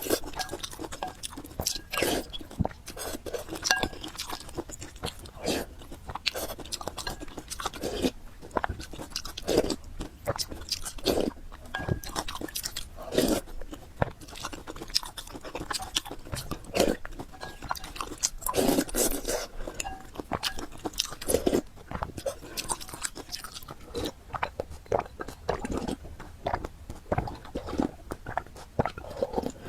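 A person chewing and biting a mouthful of spicy fried noodles with pork, close to the microphone, with many short, sharp crunching and clicking sounds coming irregularly throughout.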